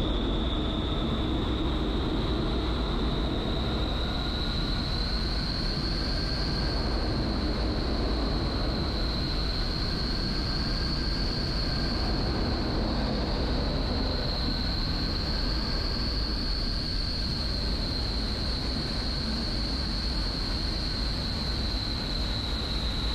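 Vertical wind tunnel running: steady rush of air from its fans, with a high whine that drifts slightly up and down in pitch.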